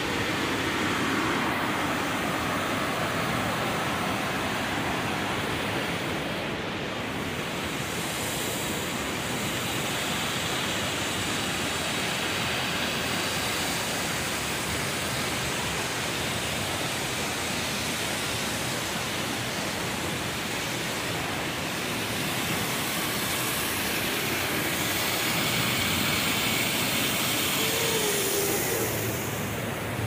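Steady rush of flowing and falling water from a waterfall and stream.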